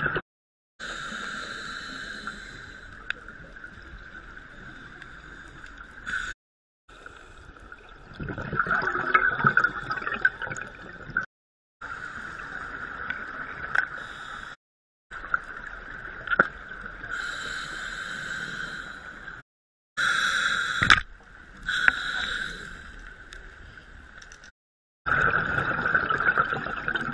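Underwater sound from a diver's camera: gurgling scuba exhaust bubbles, louder in several surges, over a steady high tone. The sound cuts out abruptly several times where clips are joined.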